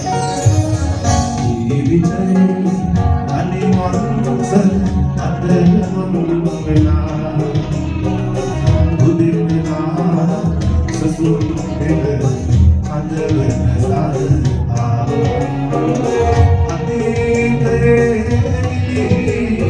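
A live band playing a song with singing, acoustic guitar, keyboard and hand drums.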